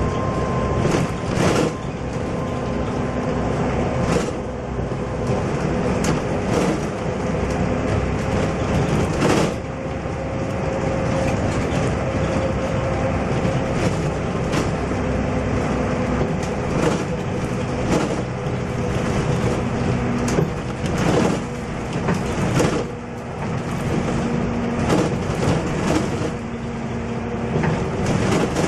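Cabin sound of a MAN NL222 low-floor city bus on the move: the diesel engine and drivetrain give a steady hum over road noise, with short knocks and rattles from the bodywork and fittings every second or two.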